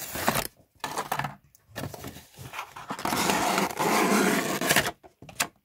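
Cardboard reed diffuser box being opened by hand: short scrapes and rustles of the carton flaps, then one longer continuous scrape of nearly two seconds about three seconds in.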